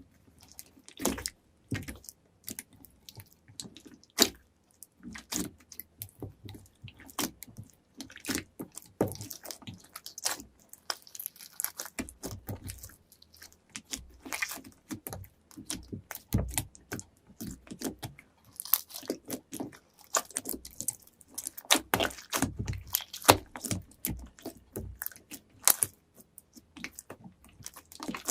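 Slime being squeezed and kneaded by hand, making irregular wet clicks, crackles and squelching pops.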